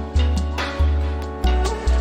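Music with a steady beat and a heavy bass line, a new bass note about every half second.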